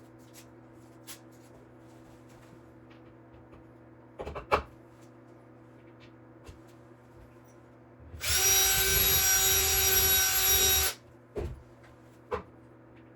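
Power drill running steadily for just under three seconds in the second half, with a few sharp knocks before and after.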